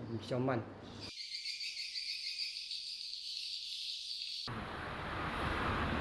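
Dense, continuous high-pitched chirping of many swiftlets for about three seconds, cut off suddenly and replaced by a steady broad rushing background noise.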